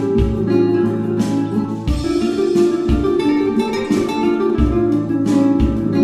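Instrumental background music led by plucked guitar, with low bass notes every second or so.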